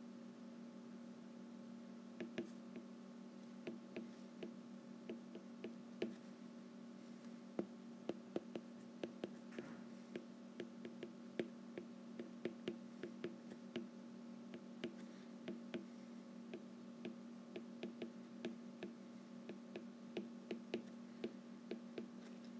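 Stylus tip tapping and clicking on a tablet's glass screen while handwriting, in quick irregular strokes with short pauses, over a faint steady low hum.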